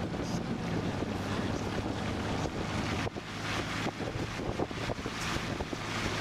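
Wind rushing and buffeting over the microphone, with crackling gusts from about three seconds in. A steady low vehicle hum lies underneath in the first half.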